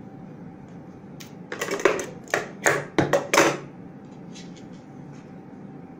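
Tailor's scissors snipping fabric: about half a dozen quick, sharp cuts in a cluster around the middle, over a faint steady hum.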